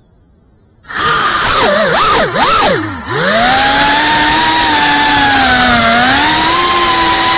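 FPV drone's brushless motors and propellers spinning up from rest about a second in, with quick swings up and down in pitch, then settling into a steady high-pitched whine as the drone lifts off and flies, with a brief dip in pitch near the end. Heard close up through the drone's onboard camera.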